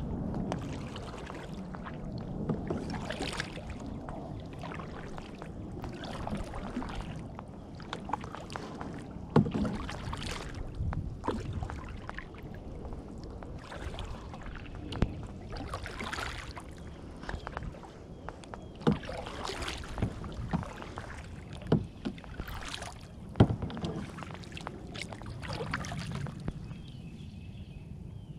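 Kayak being paddled: the paddle blades dip and splash in the water every second or two. Now and then there is a sharp knock.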